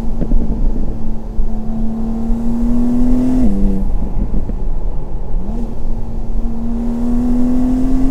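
BMW M2 G87's twin-turbo straight-six accelerating hard, its note climbing steadily in pitch. The pitch drops at an upshift about three and a half seconds in, then climbs again through a second pull to another upshift at the very end.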